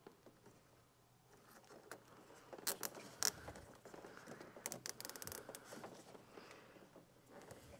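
Nylon zip tie being pulled tight around a wiring bundle: faint handling scrapes, a few sharp clicks, and a quick run of ratcheting ticks as the tail is drawn through the lock.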